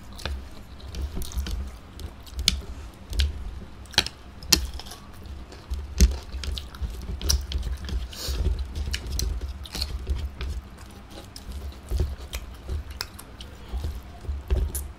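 Close-miked chewing of chow mein noodles: wet smacking with irregular sharp clicks and soft low thumps.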